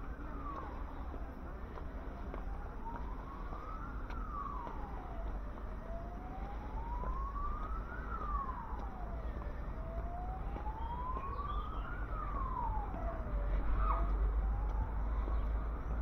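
Emergency vehicle siren wailing: its pitch climbs slowly and drops more quickly, repeating about every four seconds, and it grows a little louder near the end.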